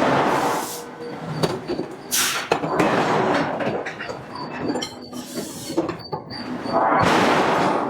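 Hydraulic forging hammer working steel billets: sharp knocking blows mixed with long hissing rushes of noise that swell up three times.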